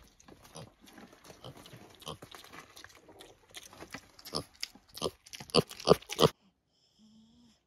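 Piglet rooting and chewing spilled grain close up: a run of small crunches and clicks that grow louder as its snout nears the microphone, then stop abruptly about six seconds in.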